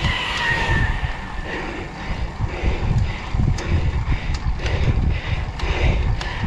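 Wind buffeting the microphone of a handlebar-mounted action camera on a slowly climbing road bike, in low, uneven gusts. Faint sharp clicks come now and then through the second half.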